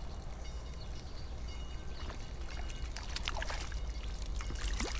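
Water splashing and trickling close to a kayak, with short drips and splashes that grow busier over the last few seconds, over a steady low rumble.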